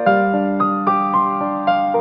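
Soft background music: a keyboard, piano-like, playing slow sustained notes over a held low note, a new note starting every few tenths of a second.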